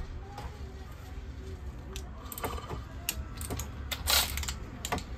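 Light, irregular metallic clicks and clinks of a ratchet, extension and spark plug socket being worked while a spark plug is run down, with a louder clink about four seconds in.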